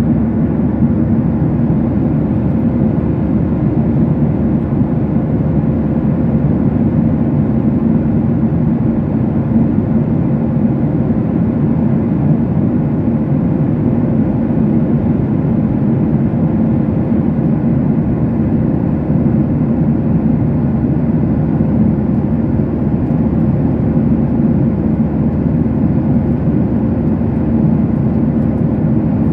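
Steady cabin noise of an airliner in flight: an even low drone of engines and airflow, with a faint steady tone above it, unchanging throughout.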